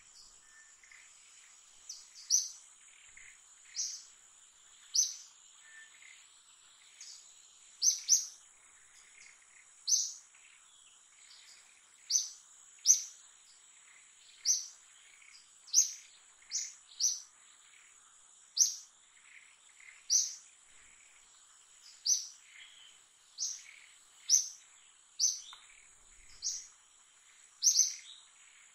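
A bird repeating a short, sharp, high call roughly once a second, with irregular gaps, over a steady high insect drone.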